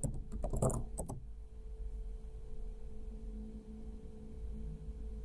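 A few computer keyboard keystrokes in the first second, as a transaction code is entered, then a steady low electrical hum with a faint constant tone.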